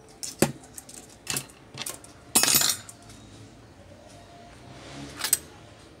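Small metal tools and parts clinking and clattering on a workbench as they are handled. There are several separate clinks, a louder half-second rattle about two and a half seconds in, and a last sharp clink near the end.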